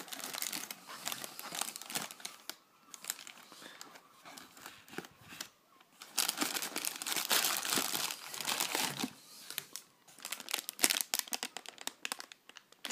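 Plastic bag crinkling and rustling as it is handled and drawn out of a small cardboard box, with cardboard flaps scraping. The handling comes in spells, with quieter pauses between them.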